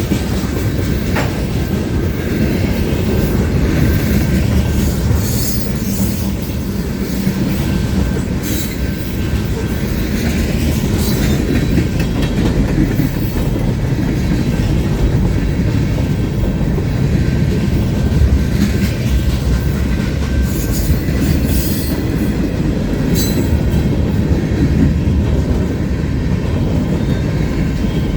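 CSX mixed freight train's cars rolling past: a steady, loud rumble and clatter of steel wheels on the rails, with brief high-pitched wheel squeals several times.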